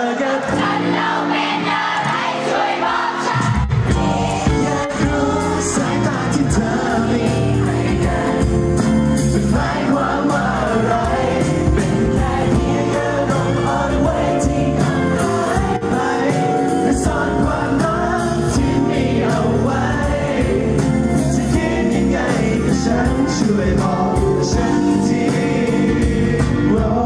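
Pop song with male group vocals, played loud over the stage sound system; the bass and beat come in fully about three and a half seconds in.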